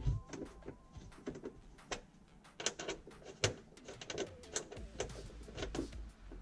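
Scattered light clicks and taps of hand work on a car hardtop's rear mounting fasteners, as its bolts are tightened by hand. A faint high tone is held through about the first second.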